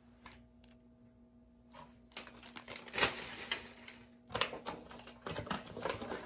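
Camera packaging being handled: a burst of crinkling plastic and cardboard about two seconds in, then a quick run of small taps, clicks and rustles as a small cardboard box is picked up and moved.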